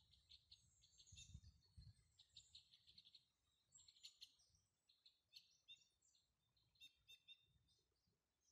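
A flock of white-winged crossbills calling: faint, short, high chirps in quick runs, with a brief low rumble about a second and a half in.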